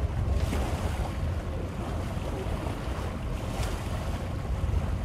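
Wind buffeting the microphone in a steady low rumble, over the wash of water in the bay.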